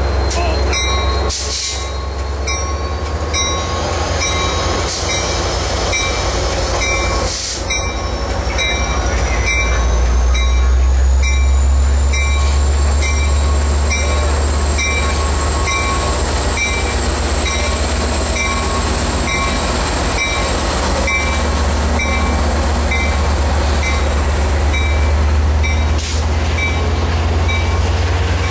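Amtrak Pacific Surfliner train led by an EMD F59PHI diesel-electric locomotive pulling slowly past: a heavy diesel rumble, with a high whine that rises in pitch over the first dozen seconds as the train picks up speed and then holds steady. A bell rings at an even pace throughout.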